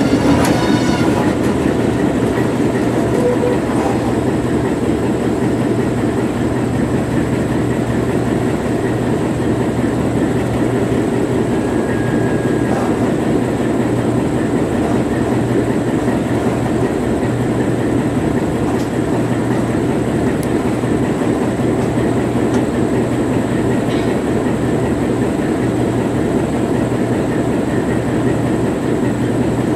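Freight train creeping to a halt, with a steady rumble and low hum that carries on unchanged after the cars stop moving.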